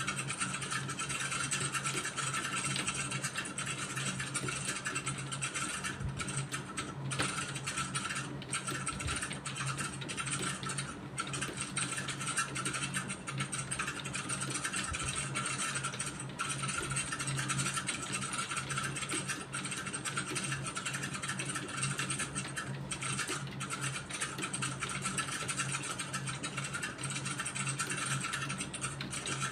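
Computer keyboard being typed on steadily and quickly, a dense run of key clatter with short pauses every few seconds, over a steady low hum.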